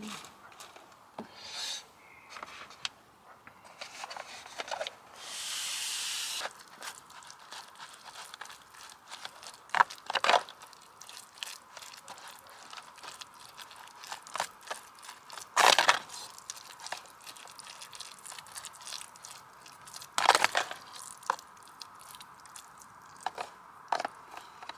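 Tableware and food packaging being handled during a meal: scrapes, clicks and crinkling, with a brief hiss about five seconds in and a few louder knocks.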